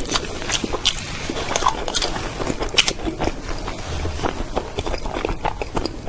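Close-miked mouth sounds of a person biting into and chewing a dark, soft sweet, with irregular sharp clicks and smacks.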